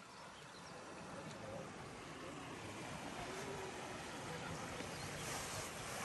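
Flowing river water: a steady, even rush that grows slightly louder.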